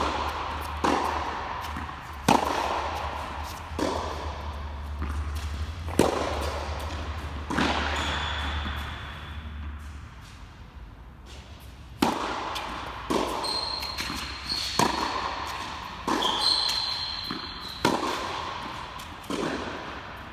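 Tennis ball struck by rackets and bouncing on an indoor hard court, sharp pops echoing through the large hall, in two rallies with a pause of a few seconds in the middle. A few short, high shoe squeaks on the court during the second rally.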